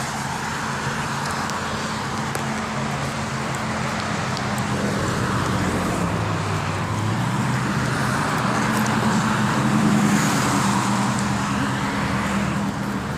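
Steady road traffic: engine hum and tyre noise from cars on the road, a little louder about ten seconds in as a vehicle comes close.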